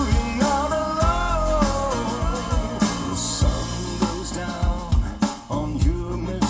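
A pop song with a singer, drum kit and deep bass, played back through a car audio system of Micro-Precision S3 speakers and a Prism SQ-99DSP bass box.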